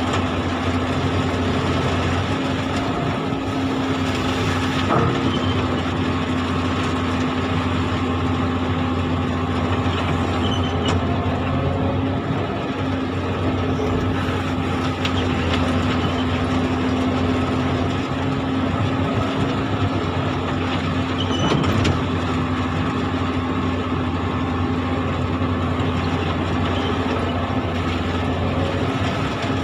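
Komatsu hydraulic excavator's diesel engine running steadily, heard from inside the operator's cab. A brief knock comes about five seconds in and another about twenty-one seconds in.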